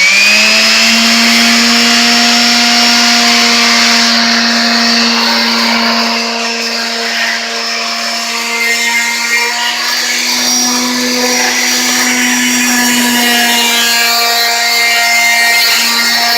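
Electric power sander starting up and running steadily at full speed, its motor whine climbing to pitch right at the start and then holding.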